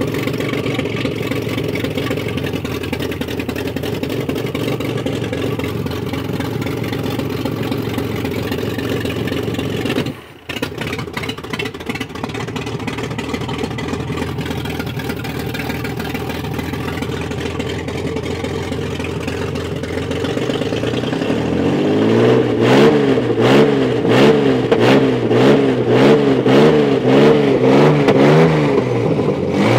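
Old carburetted Ford 3-litre V6 petrol engine running steadily at idle with the bonnet open. Its level dips for a moment about a third of the way in. In the last third the throttle is blipped again and again at the carburettor, the revs rising and falling about once a second.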